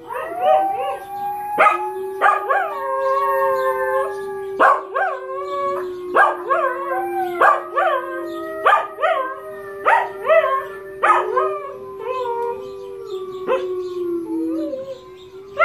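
Pembroke Welsh corgi howling along to sounds played from a laptop's speakers: a long held, wavering howl, with the playback's sharp repeated accents coming at a brisk uneven beat, thinning out over the last few seconds.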